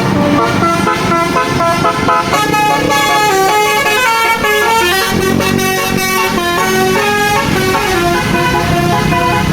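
A bus's basuri telolet horn, a multi-trumpet musical air horn, playing a quick tune of short stepped notes over a low rumble.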